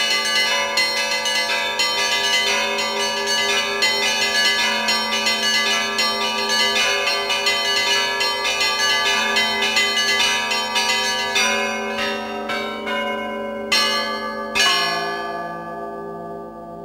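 Russian church bells rung by one ringer pulling clapper ropes: a fast, dense peal of small bells over a steady low hum. About twelve seconds in the peal thins to a few separate strikes, ending with one loud stroke that rings on and fades.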